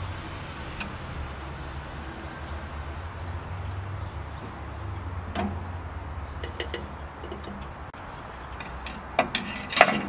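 Scattered clicks and knocks of steel screwdrivers and plastic bar clamps against a sawmill bandwheel as a polyurethane poly-V belt is pried onto it, with a cluster of louder sharp knocks near the end, over a low steady rumble.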